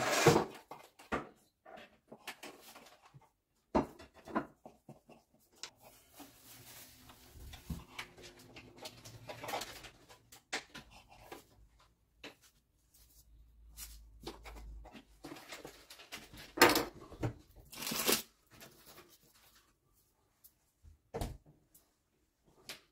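Knife cutting along rolls of filled filo pastry on baking paper, with paper rustling and scattered light knocks from handling the dough. Two louder sharp sounds come close together a little past the middle.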